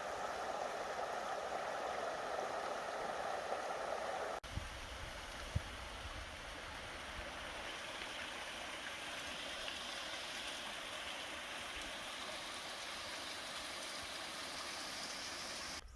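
Steady rushing water noise. About four and a half seconds in it changes abruptly to a brighter, hissier wash with a low rumble underneath.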